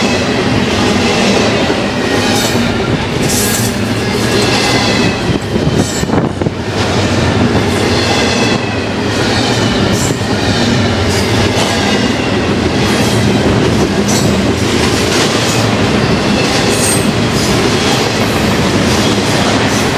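A BNSF double-stack container train passing close at speed: a loud, steady rumble and rattle of wheels on rail and container cars, with clicks from the rail joints and faint wavering squeal from the wheels.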